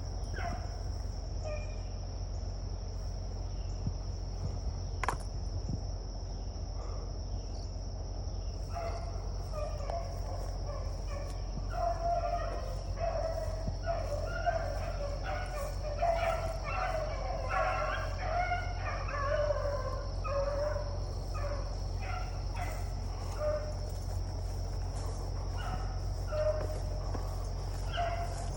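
A pack of beagles baying on a rabbit's track, a thick run of short, repeated cries starting about nine seconds in and thinning out after about twenty, with scattered single cries before and after. A steady high insect drone runs underneath.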